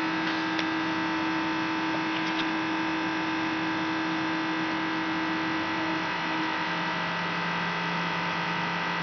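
Steady electrical machinery hum of several held tones over a background hiss; one of the middle tones stops about six seconds in.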